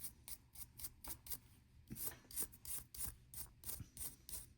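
Small resin watch parts being handled: a run of irregular light clicks and scrapes, a few a second.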